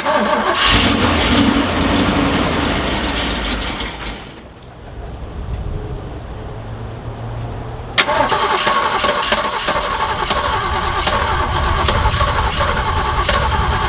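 Carbureted Jeep engine cranking on the starter, once for about four seconds, then again from about eight seconds in, without catching and running: the long-empty tank has not yet pumped fuel up to the carburetor.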